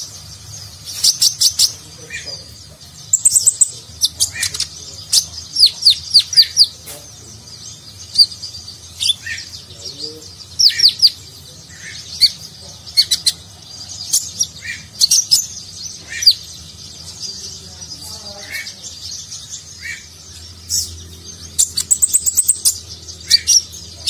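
Male Van Hasselt's sunbird (konin) singing in full voice: bursts of sharp, high, rapidly descending notes and short trills, a little over one burst a second, with softer lower notes between them.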